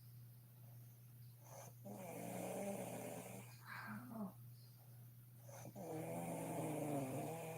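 A sleeping woman snoring: two long, pitched snores about four seconds apart, with a shorter, softer breath sound between them.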